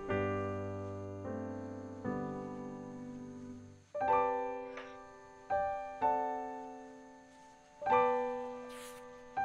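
Soft background piano music: slow, separate chords and notes, each struck and left to fade.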